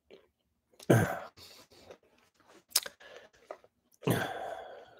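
Two short throaty vocal bursts from a person, one about a second in and a longer one about four seconds in, with faint soft sounds between.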